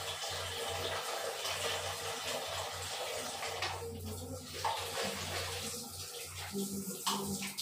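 Water running from a wall tap into a plastic bucket, with splashing and sloshing as clothes are pushed down and worked by hand in the water.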